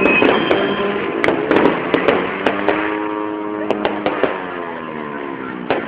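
Fireworks popping and crackling in irregular sharp reports, with a held, pitched horn-like drone sounding alongside them.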